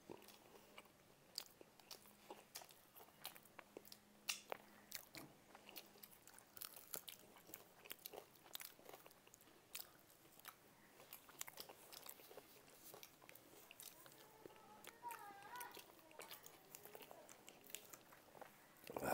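Quiet eating sounds: close chewing and crunching of fried food, heard as many small irregular crisp clicks.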